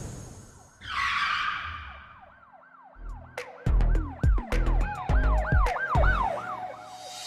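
Produced intro sound effects: a whoosh, then a siren-like synth tone swooping up and down about twice a second over deep bass hits.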